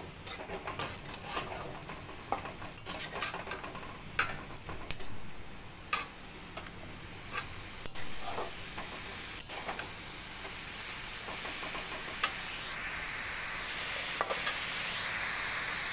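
A spatula stirring and scraping moringa (drumstick) leaf saag around a metal kadhai, with frequent sharp clicks against the pan, over a steady frying sizzle on a low flame. The sizzle grows louder in the second half as the stirring clicks thin out.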